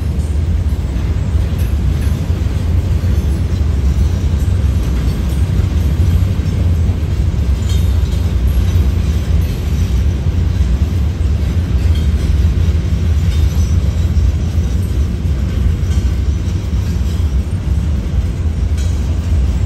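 Freight train of covered hopper cars rolling past, a loud, steady low rumble with a few faint high clicks.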